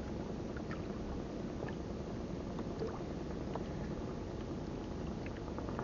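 Steady low rumble around a small fishing boat on the water, with scattered faint light clicks as longline hooks are hung on the hook rack.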